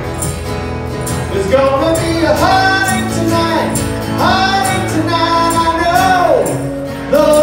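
A man singing long, sliding held notes over a steadily strummed acoustic guitar.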